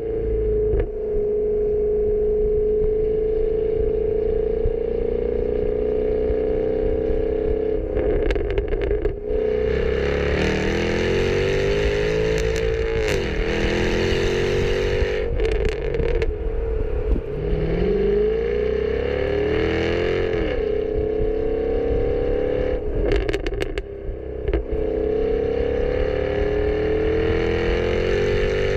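Jaguar F-Type R's supercharged 5.0-litre V8 exhaust idling steadily, then revved in several rising-and-falling blips with sharp cracks from the exhaust, and settling back to a steady idle near the end.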